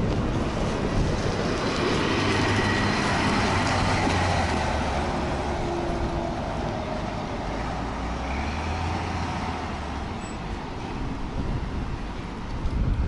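Rumble of a large road vehicle driving past, a steady low noise that swells and then eases off.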